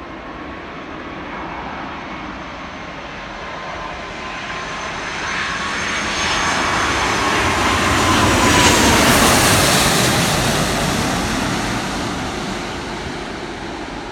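Airbus A330 jet airliner passing on its landing approach. The engine noise swells to a peak about nine seconds in and then fades, and the engines' whine drops in pitch as it goes by.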